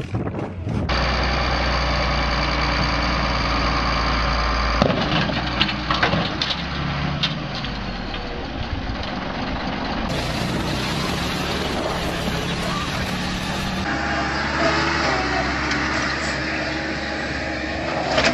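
A string of short clips cut together, each with vehicle engines running, changing abruptly every few seconds.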